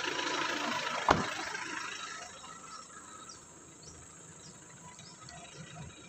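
Road and wind noise of a moving car, with a sharp click about a second in; the noise fades out about two seconds in, leaving a faint background with a few short high chirps.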